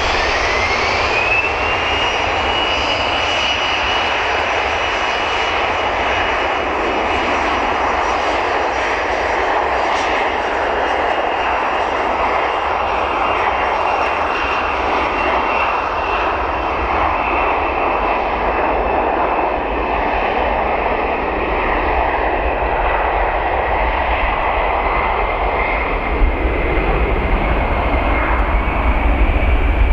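Embraer ERJ-145 regional jet's Rolls-Royce AE 3007 turbofans running at taxi power: a steady jet rush with a thin whine that rises in pitch over the first two seconds and then holds. A low rumble builds near the end.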